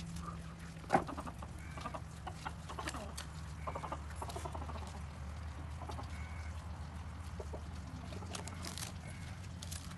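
Chickens clucking in the background while flatbread is torn by hand into pieces over a steel plate, with soft rustles and small clicks. There is one sharp knock about a second in and a steady low hum underneath.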